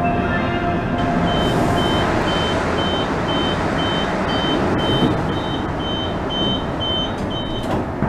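Door warning beeper of a KTM Komuter electric train sounding a high, even beep about twice a second while the sliding passenger doors open and close, over the steady hum of the train. A sharp knock near the end as the doors shut.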